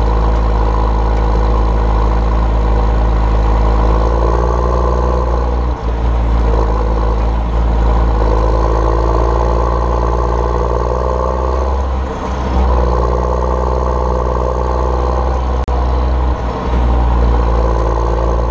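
Tractor diesel engine running steadily while driving, heard close to its upright exhaust stack. The engine note dips briefly about three times.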